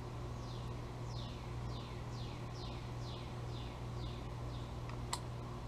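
A bird singing a series of about nine short downslurred whistled notes, roughly two a second, over a steady low hum. A single sharp click near the end.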